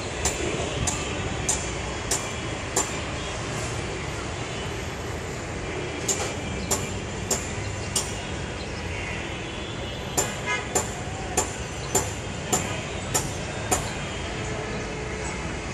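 Steady city traffic noise with occasional horns, heard from high up. Over it come runs of sharp, ringing knocks, about one and a half a second, that stop and start several times.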